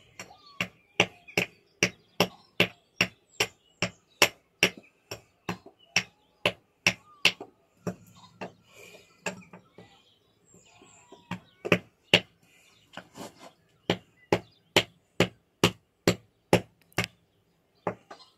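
Hammer striking a stone fossil nodule over and over to split it open: sharp, evenly spaced knocks about three a second, with a pause of a few seconds about halfway through before the knocking resumes.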